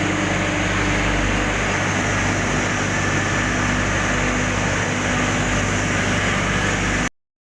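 Steady hum and rushing noise of furnace machinery running, with a constant low drone and a faint high tone, cutting off abruptly near the end.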